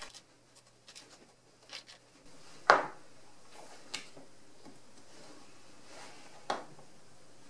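Faint clicks of small parts being handled, then a sharp knock about two and a half seconds in as a screwdriver is set down on a cutting mat. A smaller click follows a second later, and another knock comes near the end.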